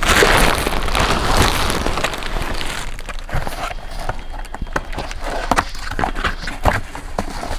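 Plastic wrapping rustling and crinkling as wrapped stock is pulled about, loudest for the first couple of seconds. Then scattered light taps and knocks as a cardboard bottle box is handled.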